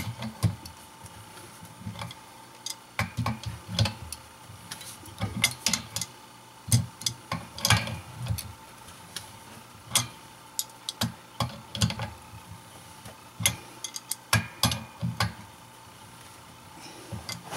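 A 12-inch adjustable wrench tightening 3/4-inch brass pipe fittings: irregular metallic clicks and knocks as the wrench is set on and turned.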